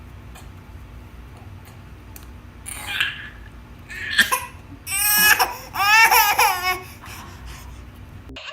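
A baby's loud, high-pitched vocal outbursts over a steady low background hum. There are a couple of short calls about three and four seconds in, then a longer run of rapid pulsing cries or laughs from about five to nearly seven seconds in.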